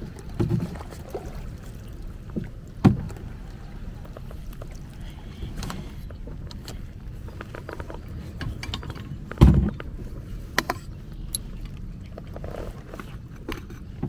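Small folding boat being paddled: a steady low rumble of water with scattered knocks and clicks against the hull, the loudest knock about nine and a half seconds in.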